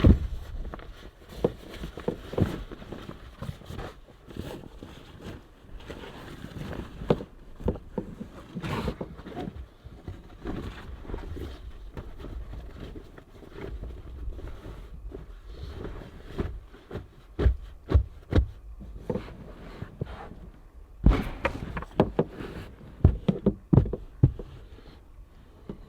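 Irregular knocks, thumps and scrapes of things being handled and set down, with a busier run of louder knocks in the last third.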